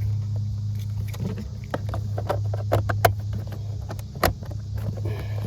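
Plastic car trim cover being pressed back into place: a series of sharp clicks and knocks, the loudest about three seconds and about four seconds in, over a steady low hum.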